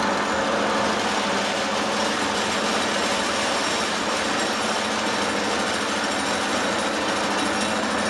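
Hydraulic pile hammer driving a steel sheet pile into the ground, a steady, fast rattling drone without a break.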